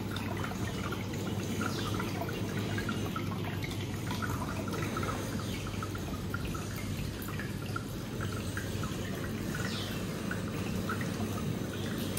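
Turtle tank filter outflow trickling and dripping into the water, over a steady low hum.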